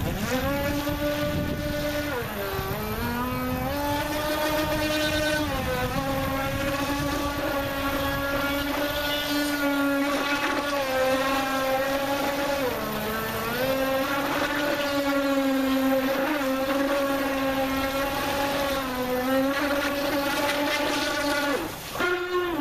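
Brushless electric motor of an Aquacraft Hammer RC boat on a 3S LiPo, whining at high speed over the hiss of the hull on the water. Its pitch dips briefly a few times and drops sharply near the end.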